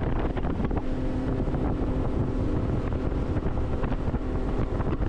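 Boat's outboard motor running steadily as the aluminum fishing boat travels across the lake, with wind rushing over the microphone.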